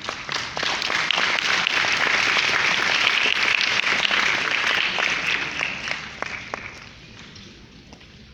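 Audience applauding: many hands clapping, swelling in the first second and dying away about seven seconds in.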